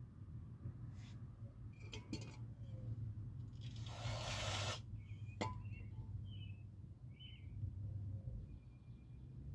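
Faint background sounds with a steady low hum, a few sharp clicks, a short hiss about four seconds in, and several short high chirps in the second half.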